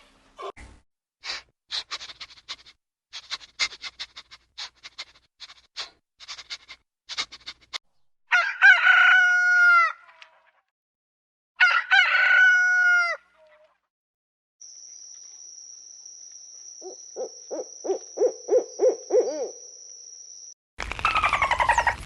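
Chickens: a run of short, scattered clucks and clicks, then a rooster crowing twice, each crow about one and a half to two seconds long with a falling end. Near the end a steady high whine runs under a quick series of low, pulsing calls.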